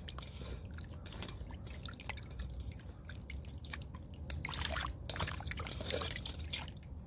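A hand stirring and scooping small dough balls in a bowl of water: irregular wet splashing and dripping, with many small clicks as the balls knock together.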